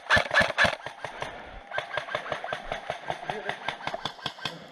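Airsoft guns firing in quick, irregular volleys of sharp clacks, several a second.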